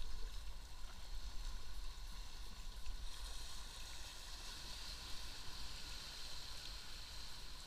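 River water flowing and splashing around an inflatable kayak, a steady hiss with a low rumble under it. About three seconds in, the hiss grows brighter and louder as the kayak passes a patch of white water.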